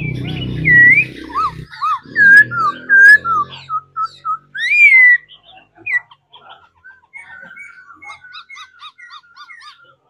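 Caged laughingthrush singing: loud, clear whistled notes that rise and fall for about five seconds, then softer, quick repeated short notes.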